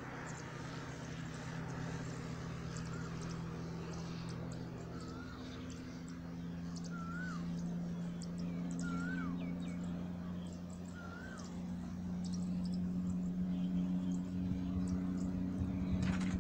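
Steady low drone of the RC glider's electric motor and propeller, a few even tones held throughout and swelling louder near the end, where it cuts off abruptly. A bird gives five short rising-then-falling calls about two seconds apart in the middle.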